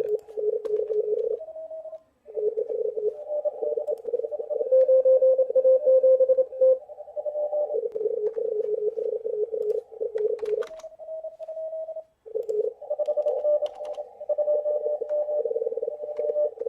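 Morse code (CW) signals from a shortwave amateur radio receiver tuned to a contest. Several stations key at slightly different pitches at once, overlapping one another, and one strong signal stands out from about five to seven seconds in.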